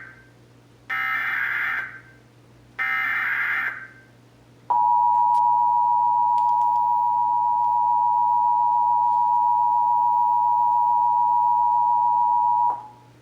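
Emergency Alert System test. First the SAME digital header: the end of one buzzy data burst, then two more, each about a second long with a short gap between. About five seconds in comes the EAS attention signal, the 853 Hz and 960 Hz tones sounded together as one steady dual tone. It lasts about eight seconds and cuts off sharply.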